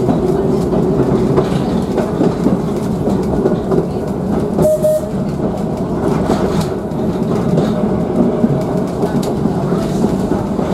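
Blackpool Vanguard replica tramcar 619, an electric tram, running along the track: a steady rumble of wheels on rails and running gear, heard from inside the open-sided car.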